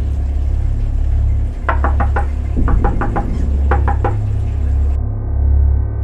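Knocking on a door, in three quick rounds of three to five knocks each from about one and a half to four seconds in, over a steady low drone.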